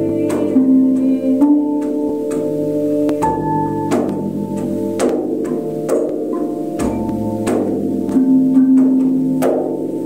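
Flat metal bells struck one after another, roughly once a second, each strike ringing on so that the tones overlap into a sustained, organ-like chord.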